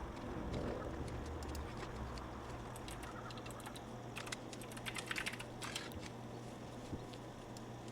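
A run of small, irregular light clicks and ticks, bunching into a quick flurry about five seconds in, over a faint low background hum.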